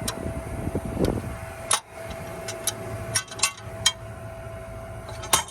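Tractor engine idling with a steady whine, broken by a series of sharp clicks and knocks from about two seconds in.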